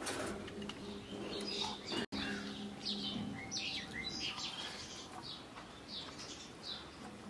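Small birds chirping, many short high chirps in quick succession, busiest in the second half, with a momentary drop-out about two seconds in.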